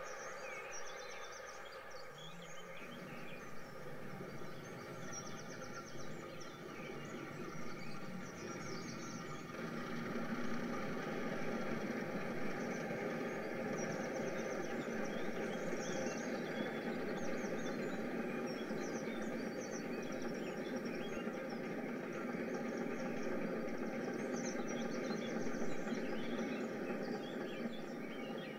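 An N gauge model freight train running along the layout's track, a steady hum and rumble of motor and wheels that grows louder from about ten seconds in and holds until near the end. Short high chirping trills come and go over it.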